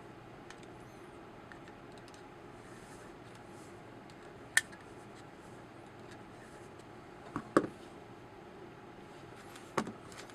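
A few light clicks and taps, about four in all, from small airgun valve parts being handled while the spring retainer is screwed down the valve stem.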